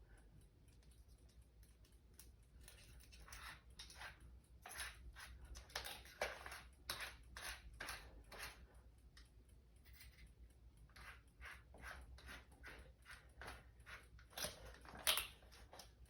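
Faint, irregular clicks and rustles of tools and hardware being handled, with no drill running.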